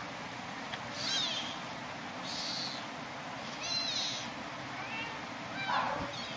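Young kittens mewing: about four thin, high-pitched cries a little over a second apart, then a lower call near the end.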